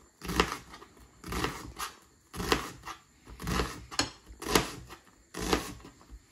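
Kitchen knife dicing an onion on a cutting board: a steady run of short chopping cuts, about one a second.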